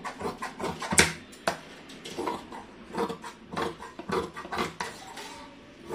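Large tailor's scissors cutting through folded fabric: a run of snips, the metal blades clicking a few times a second, with a sharp click about a second in.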